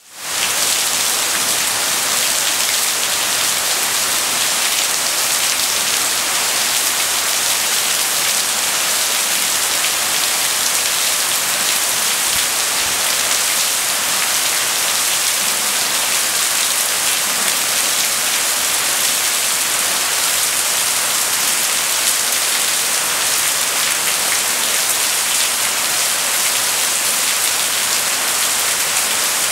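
Heavy rain pouring down steadily onto dense trees and foliage, an even, unbroken hiss of rainfall.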